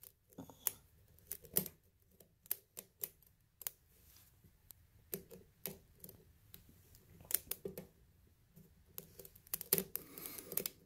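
Irregular light metallic clicks and ticks of a lock pick and tension wrench working the pins and core of a pin-tumbler lock, a few clicks a second with short pauses between clusters.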